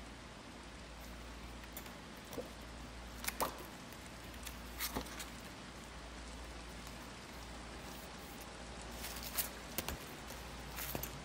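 A few light taps and clicks of a spiral-bound watercolour paper pad being handled, its cover flipped open and the pad set down on a table, over a quiet steady hum. The taps come scattered through the first half, with a small cluster near the end.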